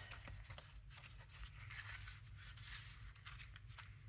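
Faint rustling of paper cards and tickets being handled, with scattered light ticks and taps.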